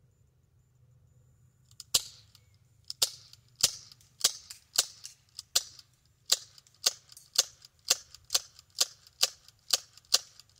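Glock 19 replica CO2 BB pistol firing a rapid string of about sixteen sharp pops, roughly two a second and quickening slightly, starting about two seconds in.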